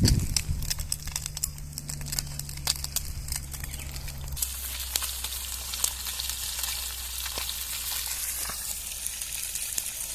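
Small lambari fish frying in hot oil in a pan over a campfire: a steady sizzle with fine crackling spatters.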